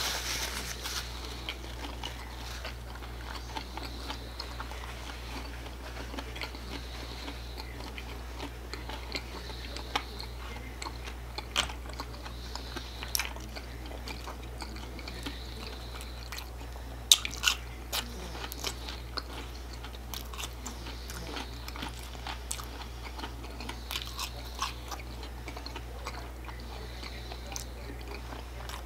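Close-up chewing and crunching of hard-shell tacos and french fries: scattered sharp crunches and mouth clicks, the loudest a little past halfway, over a faint steady low hum.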